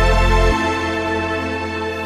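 Slow, sustained background music with held chords; the low bass notes drop away about half a second in, leaving softer upper tones.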